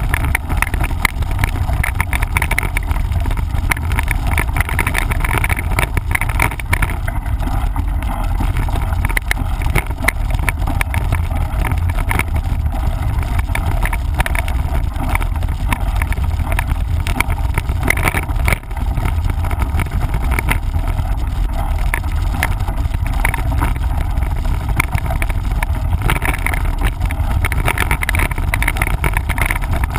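Wind rumbling on a moving camera's microphone during a mountain-bike ride, with a constant patter of rattles and knocks from the bike going over rough trail.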